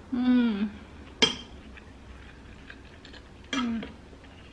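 A woman eating gives a short closed-mouth "mmm" at the start and again near the end. About a second in, a metal spoon or fork clinks once against a ceramic plate.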